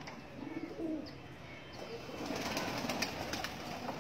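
Domestic pigeons cooing in low, rolling calls, with a few light clicks in the second half.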